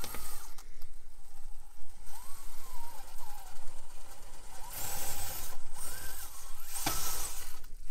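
FMS FCX24 micro RC crawler's small electric motor and gearbox whining, the pitch wandering up and down with the throttle as it crawls over rocks. Two brief bursts of hiss, around five seconds and again about seven seconds in.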